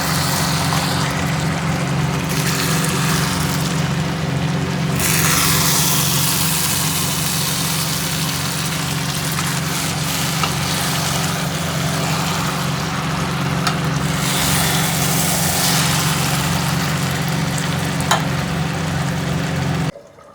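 Chicken curry frying and sizzling in a pan of hot oil, over a steady low mechanical hum. There are a few light clicks, and the sound cuts off abruptly near the end.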